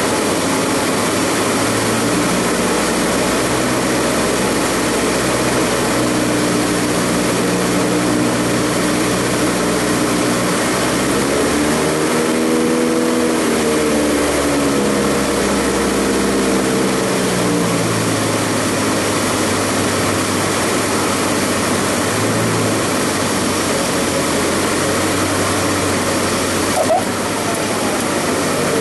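Cockpit noise of a Cessna light aircraft on its landing approach: the piston engine and propeller running at low power under steady rushing air noise. A humming tone rises and falls in pitch midway, and there is a short knock near the end.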